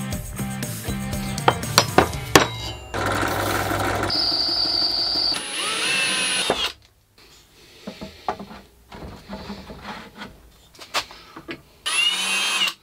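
Metalworking at the bench: a hand deburring tool scraping and clicking along a metal plate's edge, then a cordless drill whirring in bursts as it drills into an aluminium block. Near the end the drill spins up again, its pitch rising.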